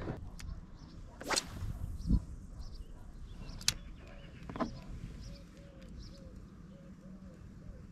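A light spinning rod whipping through the air in a cast: one sharp swish about a second in, then a dull thump and a few light clicks. Faint soft tones repeat two or three times a second near the end.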